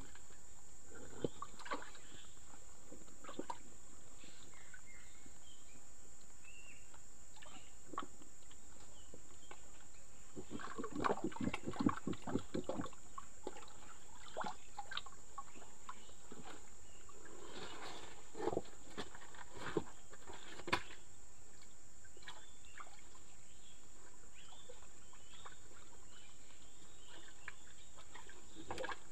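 Scattered clicks, knocks and rustling over a steady high-pitched hiss, busiest between about ten and thirteen seconds in and again around eighteen seconds.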